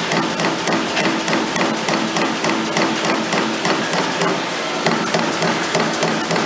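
Trumpf Trumatic 2020R CNC turret punch hitting sheet metal: a rapid, even series of sharp punch strokes, about five a second. A low machine hum runs underneath and fades out about halfway through.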